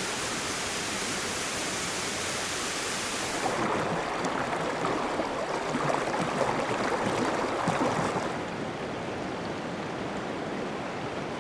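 Running stream water: a steady rushing flow, which changes about three and a half seconds in to a louder, choppier burbling and settles near eight seconds into a softer, even flow.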